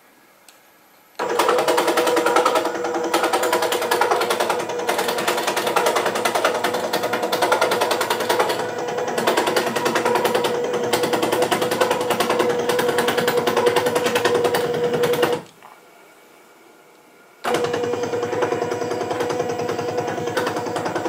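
Homemade automatic sliding panel saw running: a rapid, even mechanical rattle over a steady hum. It cuts out abruptly about 15 seconds in and starts again two seconds later.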